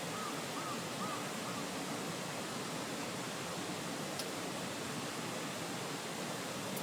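Steady rushing outdoor background noise, with four short, evenly spaced chirps in the first second and a half and a single faint click about four seconds in.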